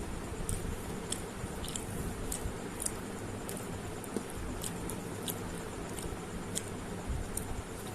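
A person chewing food with the mouth close to the microphone, making irregular short wet clicks and smacks, about two a second, over a steady low hum.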